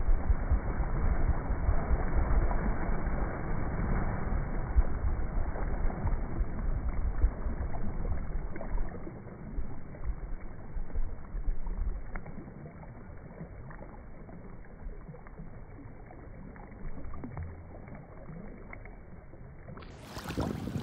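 Water churning and washing around a springer spaniel after its splash into harbour water, played back in slow motion so it is deep and dull, with scattered crackles. It is louder for about the first twelve seconds, then settles to a quieter wash. Near the end the sound snaps back to normal speed.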